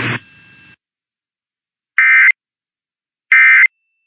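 Emergency Alert System end-of-message code: two identical short bursts of buzzy digital data tone, each about a third of a second long and about a second apart, coming after the station's audio cuts off a fraction of a second in. They signal the end of the alert.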